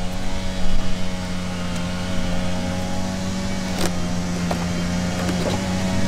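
Dense, steady hum of many honeybees buzzing around an opened hive, with a few light knocks as wooden frames are handled about four and five seconds in.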